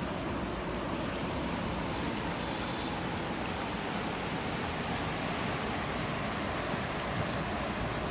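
Fast-flowing Ganga (Ganges) river rushing over rapids: a steady, even roar of water.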